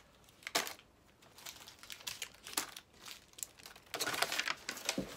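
Plastic snack wrapper crinkling and rustling in short bursts as it is handled and folded up, busiest about four seconds in.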